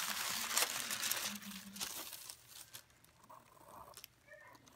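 Sheets of tracing paper and transfer paper rustling and crinkling as they are lifted and smoothed by hand, loudest in the first two seconds and then dying down.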